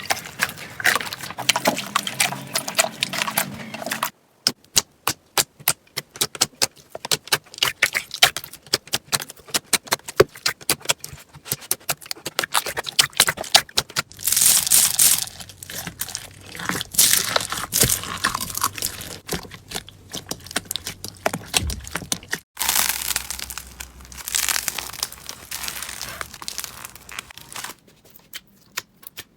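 Crunchy slime being squeezed and worked: crackling and crinkling, then a long run of sharp pops and clicks, with a change of clip partway through.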